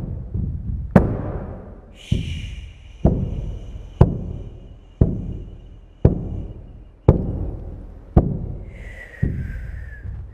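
Large hide frame drum (shaman's drum) struck with a padded beater in a slow, steady beat, about one stroke a second, each stroke a deep boom that dies away. A high ringing tone sounds over the beats for a few seconds after the second stroke, and a wavering high tone comes in near the end.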